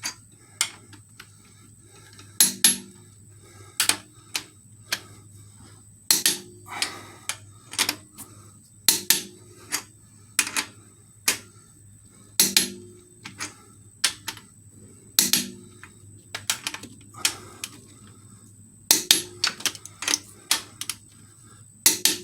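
Torque wrench and ratchet working the cylinder head bolts: sharp metallic clicks, some single and some in quick runs, as each bolt is rechecked at its final torque. A faint steady hum runs underneath.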